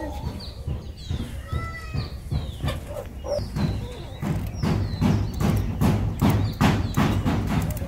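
Serrated blade of kitchen shears scraping scales off a live climbing perch (anabas), a run of short rasping strokes about three a second that get louder and quicker about halfway through. Birds chirp in the background.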